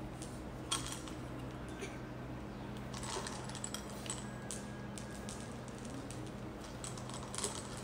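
Candy-coated chocolates clicking against a ceramic bowl and each other as small hands pick them out: a few scattered light clicks over a steady low hum.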